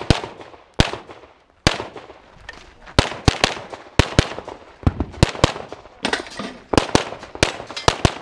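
Pistol gunfire in a rapid string: shots mostly in quick pairs, a fraction of a second apart, with short pauses between groups as the shooter moves and engages the next targets.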